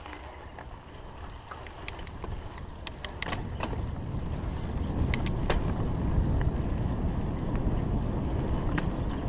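Mountain bike rolling along a dirt singletrack, with wind rumbling on the camera microphone that grows louder from about four seconds in as the bike speeds up. A few sharp clicks and rattles from the bike come in the first half and again near the end.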